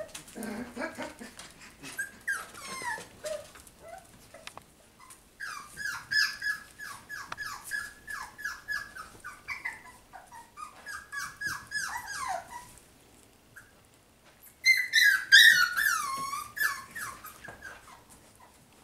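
Puppy yipping and whining in quick runs of short, high-pitched cries, the loudest run about three-quarters of the way in, falling in pitch. Scattered small clicks in between.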